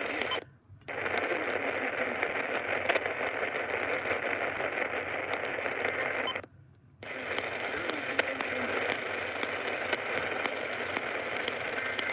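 Radio static: a steady rushing hiss from a radio receiver between parts of a broadcast, cutting out briefly twice, about half a second in and about six and a half seconds in.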